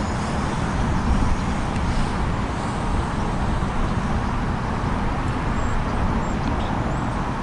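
Steady outdoor background noise: a low, fluctuating rumble with hiss above it and no distinct event.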